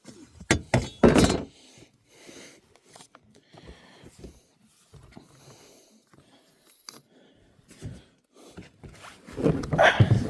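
Knocks and scrapes of a fishing kayak and paddle being shifted as a person climbs in and scoots back. A couple of sharp knocks come just after the start, there is light clatter in the middle, and a louder burst of scraping and bumping comes near the end.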